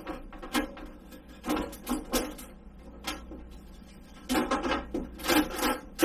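Plastic food dehydrator trays clacking and knocking as they are handled and set back onto the stacked unit. The clacks come scattered at first, then a louder cluster comes near the end.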